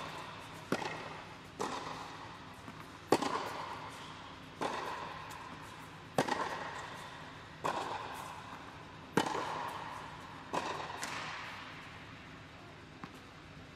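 Tennis rally on an indoor hard court: sharp racket-on-ball strikes and ball bounces about every one and a half seconds, each ringing on in a long hall echo. The hits stop about eleven seconds in.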